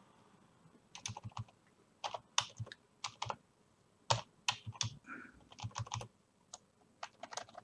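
Computer keyboard keystrokes in short irregular runs with brief pauses, starting about a second in.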